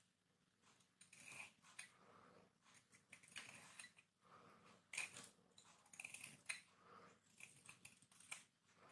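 Small knife cutting and shaving a bar of hard Lux soap: quiet, irregular crisp scrapes and cracks as the blade bites into the hard soap and flakes break away.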